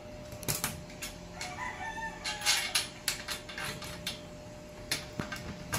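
Scattered light clicks and knocks of a mirror stand's metal frame and bolt being handled as a plastic knob is screwed on loosely by hand. About a second and a half in, a short pitched call sounds faintly in the background.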